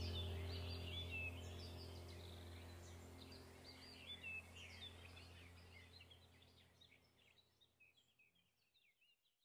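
Background nature track: many birds chirping over a low, steady droning tone, the whole fading out steadily and ending in silence.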